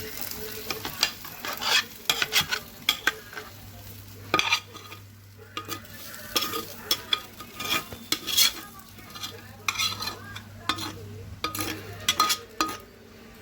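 A utensil stirring and scraping in a pan of stir-fried spaghetti, with quick, irregular knocks against the pan and a faint sizzle underneath.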